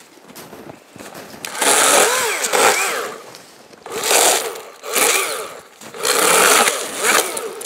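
Chainsaw revved in four short bursts starting about a second and a half in, its pitch rising and falling with each burst and dropping back quieter in between.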